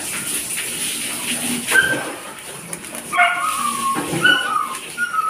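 A dog whimpering and yipping in short high whines, a few of them falling in pitch, mostly in the second half. Underneath runs a steady hiss from a pot of coconut-milk stew simmering on the stove.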